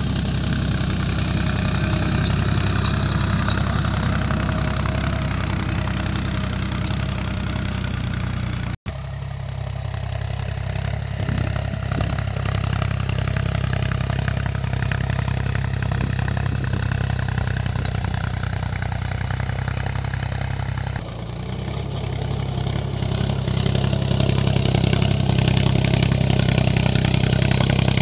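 Mahindra 275 DI tractor's three-cylinder diesel engine running steadily while pulling a cultivator through dry soil. The sound cuts out for an instant about nine seconds in, its note shifts slightly around twenty-one seconds, and it grows louder over the last few seconds.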